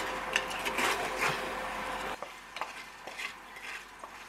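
A wooden spatula scraping fried eggs off a hot stainless steel pan while they sizzle; the eggs are stuck and break up as they are pried loose. About two seconds in, the sizzle and a steady hum stop, followed by a few light knocks.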